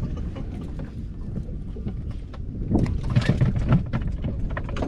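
Wind rumbling on the microphone aboard a fishing boat, with a cluster of knocks and clatter about three seconds in.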